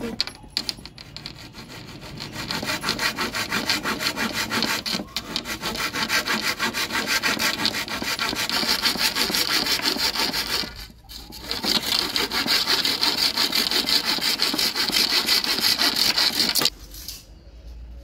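Rusty handsaw cutting through a wooden batten in steady back-and-forth strokes. It pauses briefly about two-thirds of the way in and stops shortly before the end.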